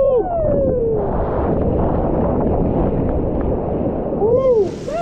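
Loud, steady rushing and splashing of water on a water-park slide. A few short rising-and-falling voice whoops come near the start and again near the end.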